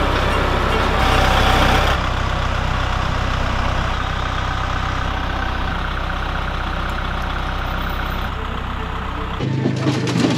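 Compact tractor engine idling steadily. About a second before the end the idle cuts off and different, more uneven sounds take its place.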